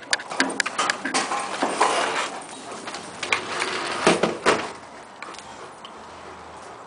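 A sliding glass patio door rattling open, with a run of knocks and clatters, quieter after about five seconds.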